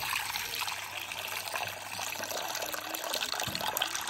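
Cloudy rinse water poured off washed rice from a metal bowl in a steady stream, splashing into a metal basin below.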